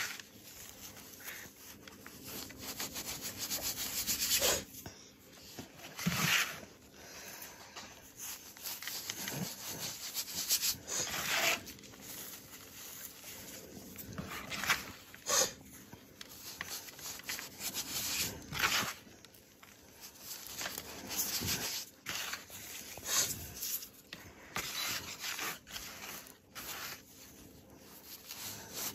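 Bare hands squeezing, crumbling and rubbing powder-coated crumbly chunks. It makes a soft gritty rubbing, broken every second or two by sharper crunchy squeezes.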